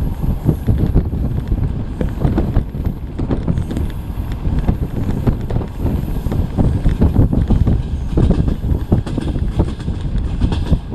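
Passenger train carriage running along the track: a steady low rumble with many quick, irregular knocks of the wheels on the rails.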